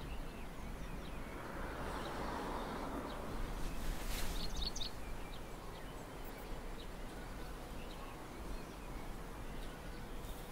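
Steady outdoor ambience with a low hum and a few short, high bird chirps, most of them clustered about four seconds in.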